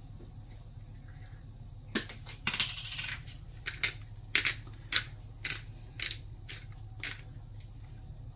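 Disposable glass pepper grinder being twisted over a steak, crunching peppercorns in short bursts about every half second, with one longer grind near the start.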